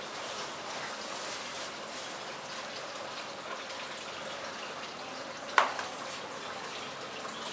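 Steady rushing noise like running water, with one sharp click about five and a half seconds in.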